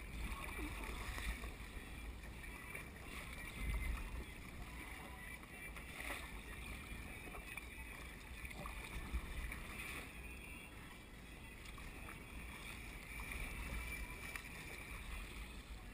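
Kayak paddle strokes and water washing along the hull of a sit-on-top fishing kayak on open sea, over a steady low wind rumble on the microphone.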